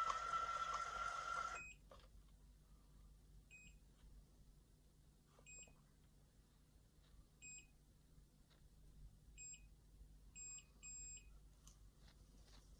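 Automatic hair curler: its motor whines while winding a lock of hair in, then stops suddenly about a second and a half in. The curler then gives short, high electronic timer beeps about every two seconds, ending with two longer beeps close together.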